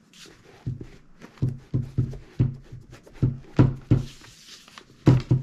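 A cloth rubbing oil conditioner into a leather work boot in quick repeated strokes, each with a dull knock or scuff, about two a second.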